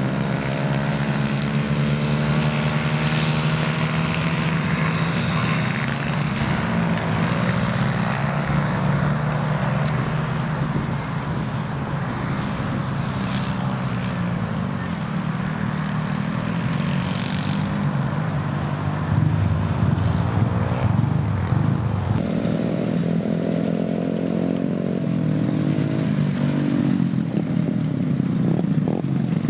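Small racing kart engines running on track, several together, their pitch rising and falling as the karts accelerate and back off; the mix of engine notes changes about two-thirds of the way through.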